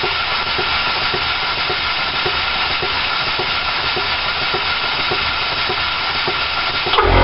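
Home-built Dake reversing engine running on compressed air, its exhaust hissing steadily with a faint regular tick a little under twice a second. Near the end, a loud low machine hum starts suddenly.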